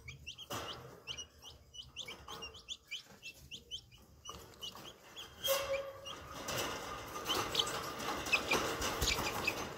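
Green junglefowl chicks peeping in a fast run of short, high chirps. From about halfway, scuffling and rustling joins in as the chicks scramble about the wire cage, with more peeps over it.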